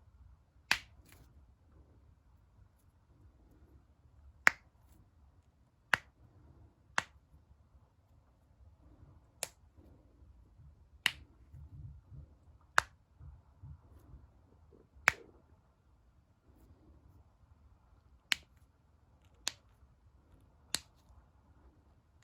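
Finger knuckles being cracked: about a dozen sharp single pops, one to three seconds apart.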